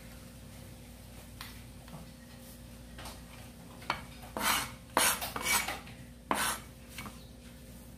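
A broad kitchen knife scraping and knocking on a plastic cutting board, five or so short loud strokes in the second half, after a few faint taps.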